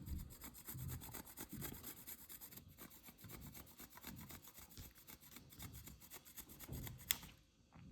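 A block of chocolate being grated on a hand grater: a faint run of repeated scraping strokes.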